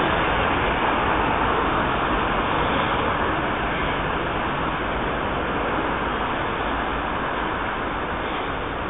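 Steady wash of road traffic noise from passing vehicles on a busy urban road, easing off slowly.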